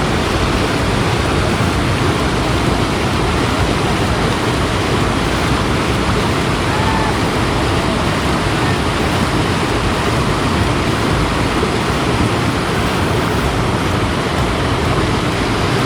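Rushing river water: a steady, loud wash of flowing water with no let-up.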